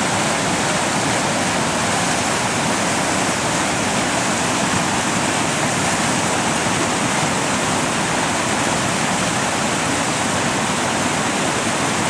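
Floodwater from an overflowing pond rushing over a road and through the culverts beneath it: a steady, loud roar of running water.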